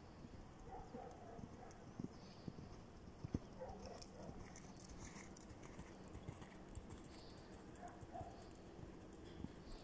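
Faint hoofbeats of a ridden horse moving over a sand arena: soft, irregular thuds, with one sharper knock about three seconds in.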